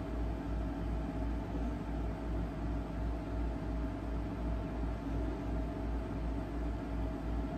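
Steady low background hum, pulsing about three times a second, with a faint steady whine over an even hiss: machine or electrical noise in the room.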